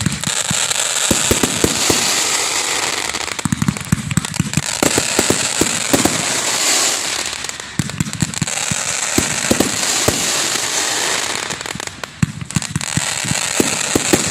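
Aerial fireworks going off in a dense barrage: many sharp bangs over continuous crackling, with a brief lull about twelve seconds in.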